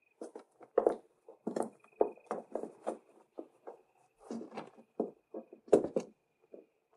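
Irregular footsteps and knocks on a wooden floor as people move about a small room, a dozen or so uneven footfalls and thuds.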